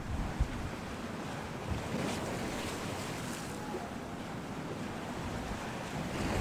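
Gale-force wind buffeting the microphone over a steady rush of rough sea and waves, with a few low thumps in the first second.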